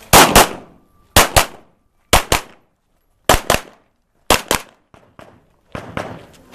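Pistol fired in quick pairs: five double shots about a second apart, each pair a fraction of a second apart, with fainter clicks near the end.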